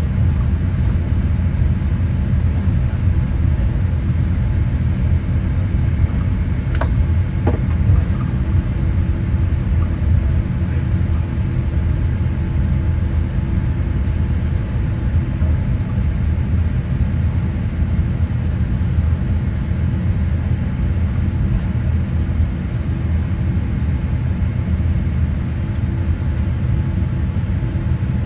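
Cabin noise of a Boeing 787-8 taxiing: a steady low rumble from the idling engines and the aircraft rolling over the taxiway, with a faint steady hum above it. A couple of short knocks about seven seconds in.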